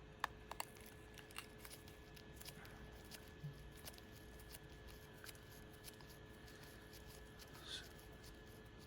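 Faint, scattered small clicks and taps of a small screwdriver working a dirty, stiff screw out of an iPhone 7, over near silence.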